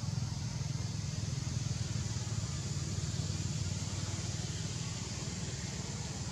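Steady outdoor background noise: a continuous low rumble with an even high-pitched hiss above it, with no distinct events.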